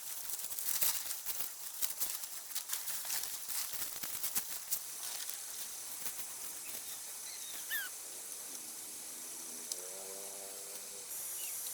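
Dry palm leaves rustling and crackling as they are handled for about the first five seconds, then a faint steady hiss with a few brief bird chirps and a short low call around eight to ten seconds in.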